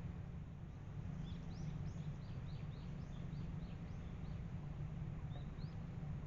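A small bird's high chirps: a quick run of about a dozen short notes over three seconds, then two more a little later, over a steady low rumble.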